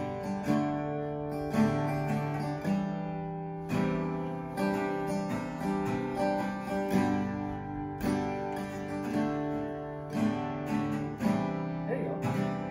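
Two acoustic guitars strummed together, playing chords in a steady rhythm.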